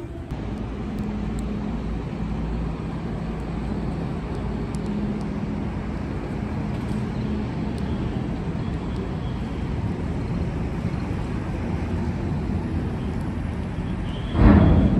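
Steady low rumble with a faint hum, outdoor harbour-side ambience at night. Near the end a short, loud rush of noise swells and falls away.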